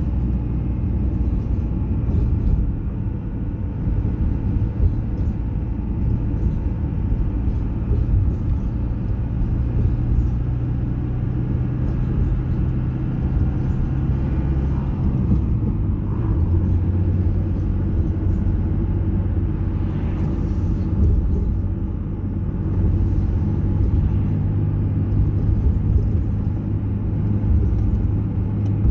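Car driving at steady speed: a continuous low rumble of engine and tyre noise on the road, with a steady engine hum whose pitch steps down slightly about halfway through.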